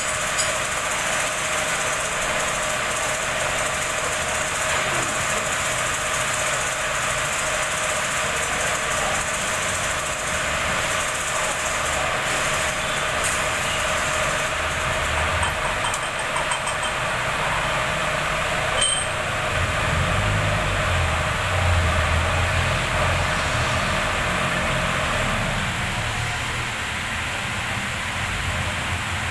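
Steady machine-shop noise: an even, loud hiss with a steady hum, with some uneven low rumbling about two-thirds of the way through.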